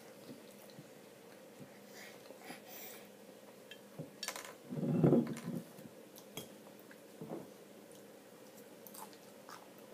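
Light clinks and taps at a wooden dining table, as of a glass bottle and small hands against the tabletop. There is a sharp click about four seconds in and a louder, lower knock-like sound just after it.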